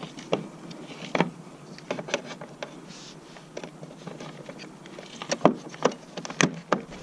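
Scattered small clicks and taps of hands and a tool working a trolling motor's plastic plug, as a wire is fed into its terminal and tightened, with a quick cluster of clicks near the end.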